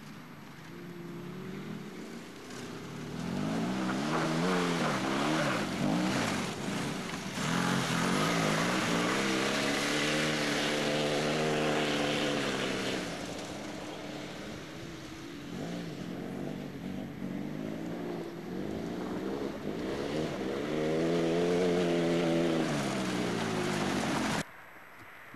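Off-road racing vehicle's engine running hard, its pitch climbing and dropping as it revs and changes gear over rough ground, held at high revs for several seconds in the middle. The sound cuts off suddenly about a second before the end.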